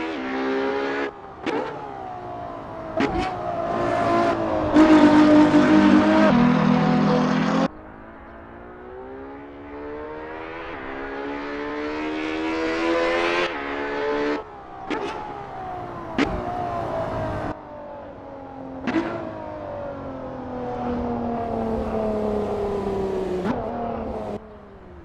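Ferrari 812 Superfast's naturally aspirated V12 being driven hard through the gears. Its pitch climbs in one long pull through the middle and falls away in other stretches, with sharp breaks at each gear change.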